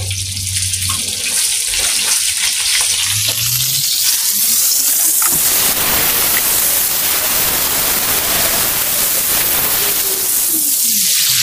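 Halibut fillets frying in hot oil in a frying pan, a loud sizzle that swells a few seconds in as the fillets are turned over with a spatula.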